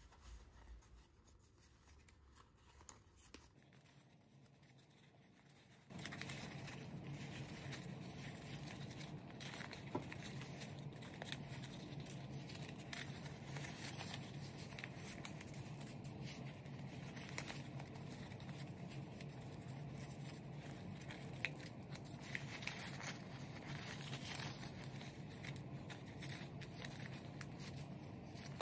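Folded sheet of letter paper crinkling and rustling in the hands as the pleats of an origami magic ball are pinched and reverse-folded. Faint at first, it grows louder and busier about six seconds in, over a low steady hum.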